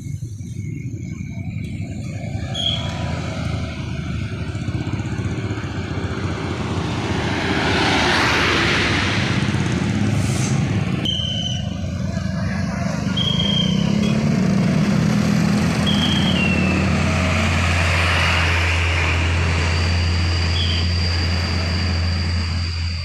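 Motorcycles and cars passing through a road intersection: engine and tyre noise that swells as vehicles go by, about a third of the way in and again past the middle. A steady low engine hum comes in near the end, with a few short high chirps scattered through.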